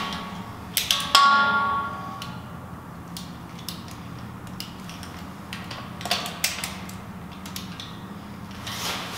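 Combination key lockbox being handled on a metal stair handrail: scattered clicks and rattles as it is worked, with one louder metallic clank about a second in that rings briefly. The lockbox is sticking, which the realtor suspects means it is broken.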